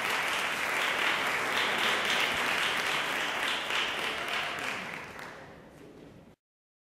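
Audience applauding, fading over the last second or so and cutting off abruptly about six seconds in.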